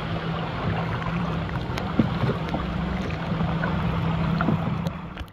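A motor running steadily: a low, even hum under a rushing noise.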